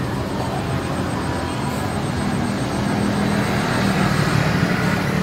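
A steady engine drone with a low hum, growing louder from about two seconds in. A faint, fast, high-pitched pulsing runs over it and stops near the end.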